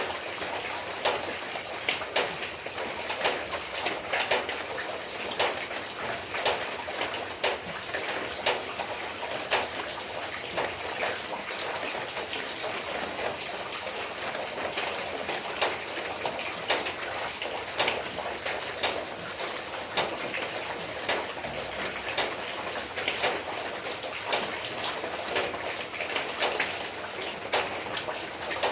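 Steady rain falling, a continuous hiss of rainfall with many sharp, irregular drop hits on nearby surfaces.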